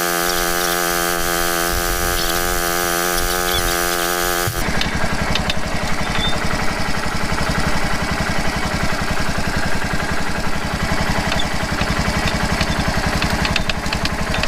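Kawasaki Prairie KVF360 ATV's single-cylinder engine running. For the first four and a half seconds it holds a steady, even-pitched drone, then it settles into a low, evenly pulsing idle with scattered light clicks.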